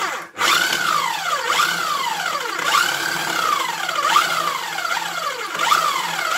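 KitchenAid food processor pulsing as it chops tomato, onion and herbs. The motor whine rises and falls about once a second, with a short stop just after the start.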